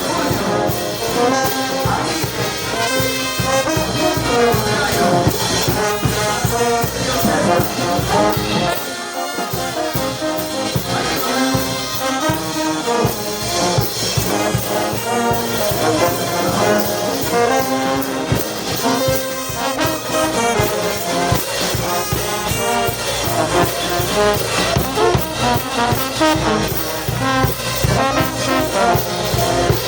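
Andean brass band playing music for the Negritos dance, with trumpets and trombones over a steady drum beat. About nine seconds in, the low drums drop out for a moment.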